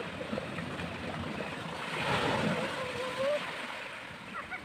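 Small sea waves washing up onto a sandy beach, with one surge swelling about two seconds in.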